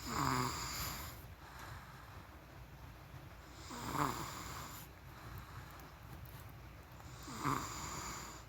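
A sleeping person snoring: three snores about three and a half seconds apart, at the start, about four seconds in and near the end, with softer breathing between.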